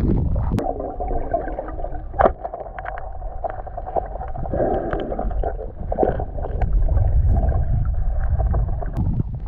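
Muffled underwater noise picked up by a submerged camera: a steady low rumble and wash of water, with scattered sharp clicks and crackles.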